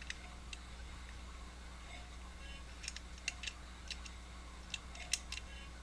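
Small sharp clicks and taps of scope rings and their screws being handled and turned finger tight, a few scattered, then bunches of several near the middle and near the end, over a steady low hum.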